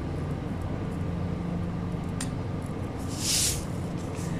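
Salt poured from a canister onto raw chicken in a pot, heard as one short hiss about three seconds in, over a steady low hum.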